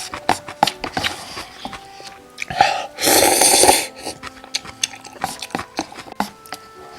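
Close-miked eating of cup noodles: one loud slurp lasting about a second, starting about two and a half seconds in, amid chewing and small clicks and taps.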